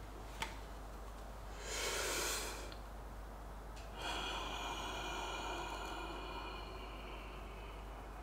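A person doing a relaxed vital capacity manoeuvre on a turbine spirometer. About two seconds in there is a short deep breath in, then from about four seconds a long steady breath out through the mouthpiece with a faint whistle, slowly fading.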